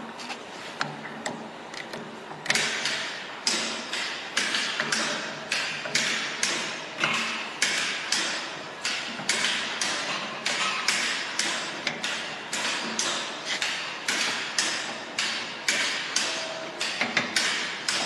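Steady run of sharp knocks, about two a second, each dying away quickly, starting about two and a half seconds in.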